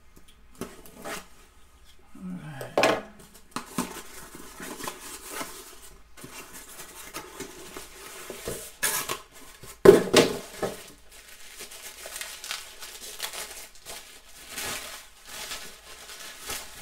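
Cardboard packaging being opened and handled by hand: rustling, scraping and tearing with small clicks, and two louder knocks about three seconds in and about ten seconds in.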